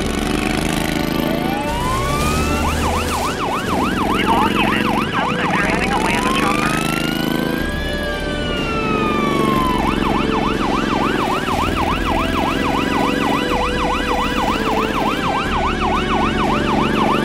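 Police car siren switching between a slow wail, one long rise and fall, and a fast yelp of about four sweeps a second, over a steady low hum.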